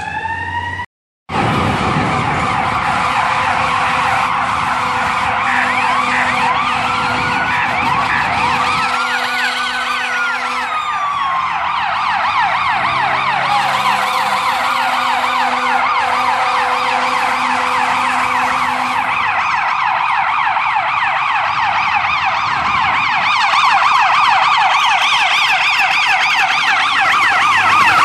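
Electronic siren of an EMS rescue truck sounding a rapid yelp as it approaches through traffic, with a slower wail rising and falling about ten seconds in. Before that, a short silent break about a second in.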